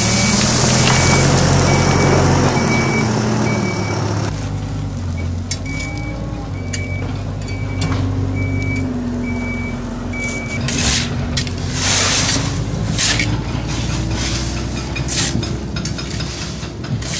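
A heavy machine's engine runs with its reversing alarm beeping about twice a second, while soil and gravel pour down into the trench during the first few seconds. The beeping stops about two-thirds of the way through, and shovels then scrape and strike the gravel several times.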